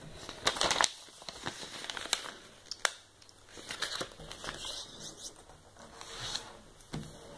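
A square sheet of origami paper rustling and crinkling as it is handled, folded into a triangle and creased by hand. There is a cluster of louder crackles about half a second in and a sharp tick near three seconds.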